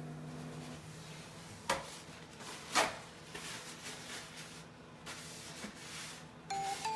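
Two short knocks about a second apart against quiet room tone. Background music fades out at the start and a new plucked melody comes in near the end.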